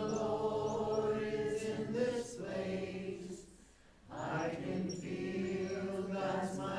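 A group of voices chanting together in long held notes, with a short pause for breath in the middle before the chant resumes.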